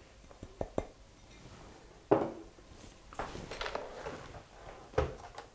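Glass mixing bowls and kitchen utensils knocking and clinking as a flour mixture is tipped into a bowl of batter: a few small clicks, then two louder knocks about three seconds apart.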